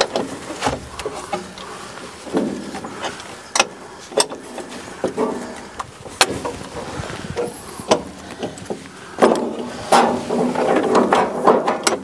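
Hand tools working on loose battery cable connections: about a dozen irregular sharp clicks and knocks of metal, busier near the end.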